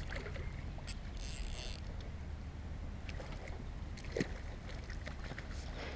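Light water splashing as a hooked carp is drawn over the landing net, with a short splashy burst about a second in and a few small knocks and clicks, over a steady low wind rumble on the microphone.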